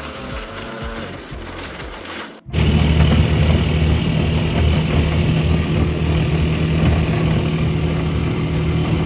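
Motorcycle engine of a Philippine tricycle running while riding, heard from inside the sidecar. A cut about two and a half seconds in, after which the engine is louder and steady.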